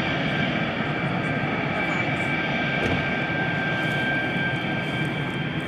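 Dassault Rafale fighter jet taxiing with its twin jet engines at low power: a steady rushing noise with a constant high whine over it.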